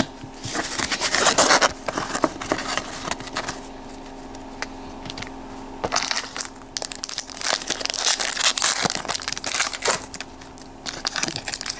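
A Pokémon trading card game booster pack's foil wrapper crinkling and tearing as it is handled and pulled open, in several bursts with a quieter stretch in the middle. The wrapper is stubborn and hard to tear.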